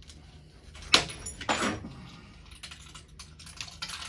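Broken mirror glass being knocked and handled: one sharp knock about a second in, then small scattered clinks and taps.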